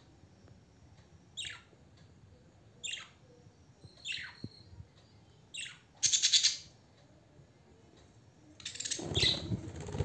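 Large green parakeet calling: four short calls that fall in pitch, about one and a half seconds apart, then a loud harsh screech about six seconds in and a longer harsh squawk near the end.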